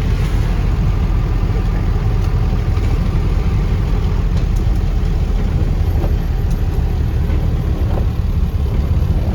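Steady low rumble of a car running, heard from inside the vehicle.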